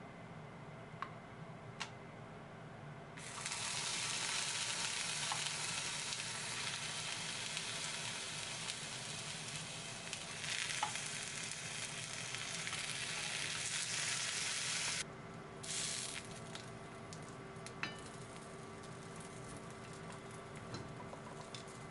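Sausages sizzling in a hot cast iron skillet. The sizzle begins about three seconds in as they go into the pan, runs loud and steady, and drops sharply to a quieter sizzle about fifteen seconds in.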